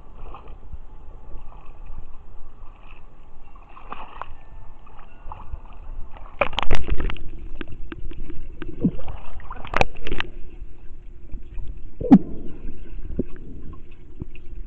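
Pool water sloshing and gurgling against a waterproof camera held at the surface. About six and a half seconds in it dips underwater and the sound turns louder and muffled, with a few sharp knocks and bumps.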